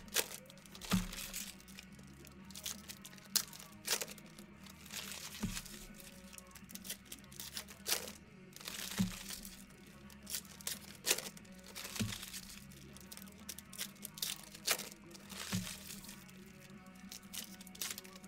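Trading cards being handled and sorted by hand: a sharp snap or tap every second or two as cards are set down onto piles, with soft card-stock rustling and crinkling between.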